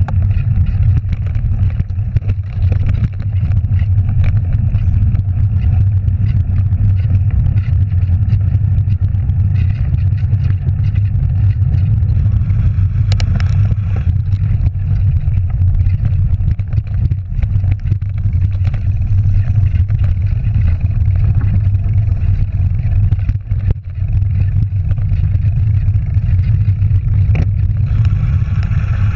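Mountain bike riding a dirt and gravel trail, heard through a GoPro Hero3+ on the bike: a steady low rumble of wind and rolling tyres, with short rattles and knocks as the bike goes over bumps.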